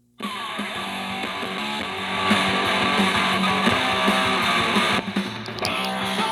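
Live hard rock recording with electric guitar, starting abruptly just after the beginning and growing louder about two seconds in.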